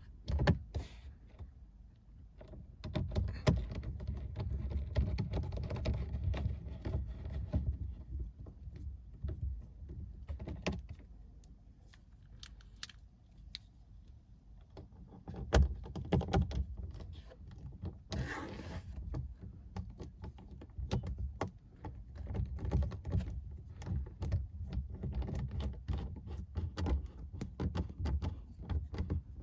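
Hands working on a car's dashboard speaker mount: irregular clicks, light knocks and rustling of plastic parts and wiring, with a brief louder rustle about two-thirds of the way through.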